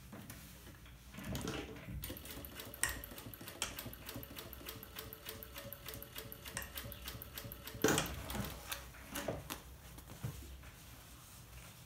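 Electric sewing machine stitching a seam: a steady motor hum with fast, even needle ticks for several seconds, then it stops with a knock about eight seconds in, followed by a few scattered clicks as the fabric is handled.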